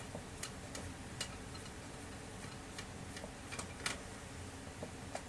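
A few scattered sharp clicks from a screwdriver working a screw out of a laser printer's chassis, over a faint steady hiss.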